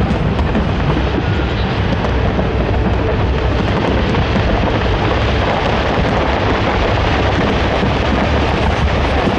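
Fireworks barrage going off continuously, the bangs blurring into one loud, steady rumble with no single report standing out.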